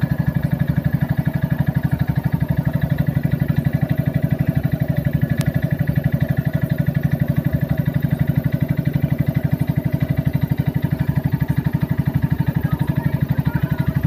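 Generator engine running steadily, with a rapid, even beat and a low hum.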